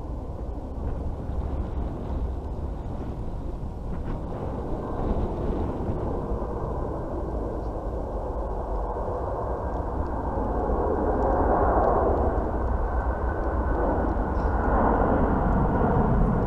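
Distant jet airliner taking off, its engines giving a steady drone that grows louder, most noticeably from about ten seconds in.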